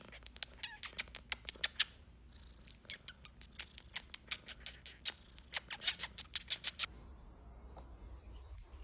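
Domestic cat purring close up, heard as crackly runs of rapid clicks in several bursts; it stops about seven seconds in, leaving only a faint hiss.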